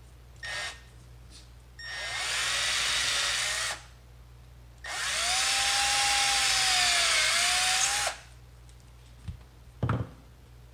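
Milwaukee cordless drill boring a screw hole into a shotgun's wooden buttstock. There is a short blip of the trigger, then two runs of about two and three seconds, the motor's whine sagging slightly as the bit bites into the wood. Two short knocks come near the end.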